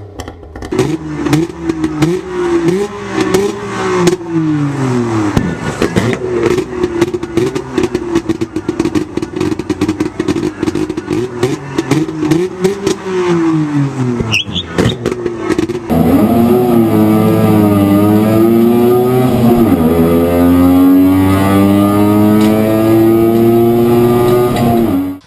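Saab two-stroke three-cylinder engine revved again and again, its pitch rising and falling, with sharp crackles in between. About 16 s in, it changes to a louder, steady pull under acceleration from inside the car, its pitch climbing slowly and dipping twice at gear changes.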